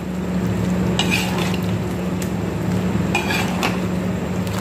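Wooden spatula stirring and scraping thick jackfruit curry around a frying pan, with scrapes about a second in and twice around three seconds in, over a low steady hum.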